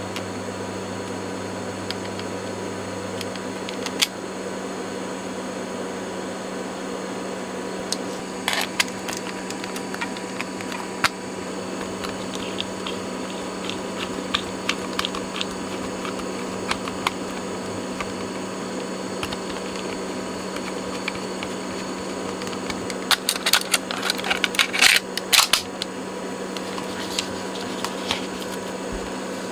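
Cassette head demagnetizer humming for about the first three seconds before it is switched off, over a steady low background hum. Then scattered clicks and taps of a screwdriver and small plastic and metal parts of a Sony WM-EX512 Walkman being handled, with a busy run of clicks near the end.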